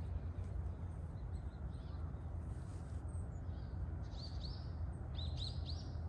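Birds chirping with short, high calls over a steady low outdoor rumble; the chirps come thicker and louder in the last two seconds.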